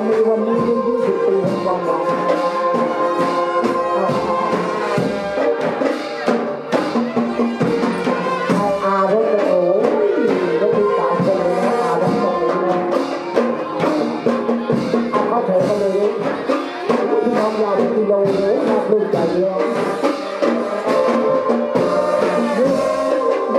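Brass band music with drums keeping a steady beat.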